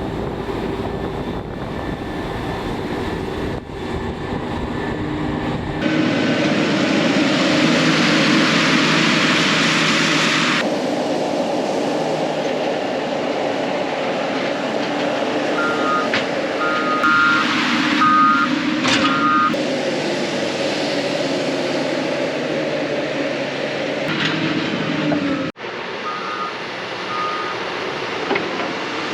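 Maize harvesting machinery, a forage harvester and tractors with trailers, running hard at work. A reversing alarm beeps in short bursts about halfway through and twice more near the end. The overall machine sound shifts abruptly a few times.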